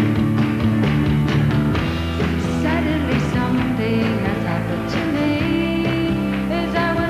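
Live rock band music: the full band with drums and guitars comes in loudly right at the start after a guitar-strummed intro, and a woman's lead vocal enters a few seconds in.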